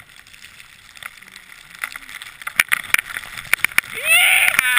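Skis sliding over snow, quiet at first and then with a run of sharp scrapes and clicks from about two and a half seconds in. Near the end a skier gives a loud rising shout of "yeah".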